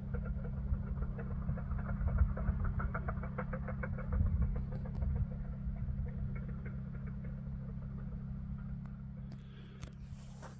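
Road-construction machinery working: an engine running with a steady low drone and, for the first few seconds, a faint rapid clatter. A brief rustle comes near the end.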